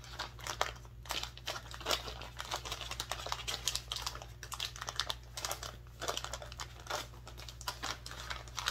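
A bag of small alligator clips crinkling and crackling irregularly as it is handled and opened.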